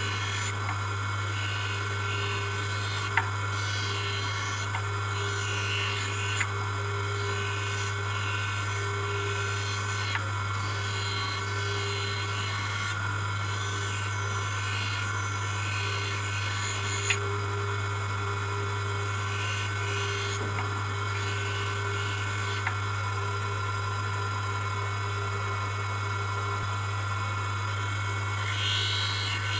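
Hand lens edger's motor humming steadily as a plastic ("fiber") bifocal lens is ground against its spinning wheel: a rasping grind that swells and fades as the lens is pressed on and eased off, with a few sharp ticks.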